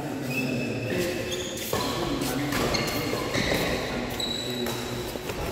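Badminton players' shoes squeaking on the court floor in short high squeaks, with a few sharp shuttlecock strikes off the rackets during a rally.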